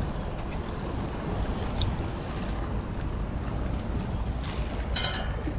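Steady low rumble of wind buffeting the microphone outdoors by the river, with a few faint ticks and a brief high sound near the end.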